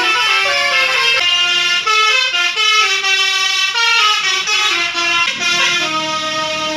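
A bus's Basuri multi-trumpet air horn playing a fast telolet melody, its loud horn notes stepping from pitch to pitch several times a second with no break.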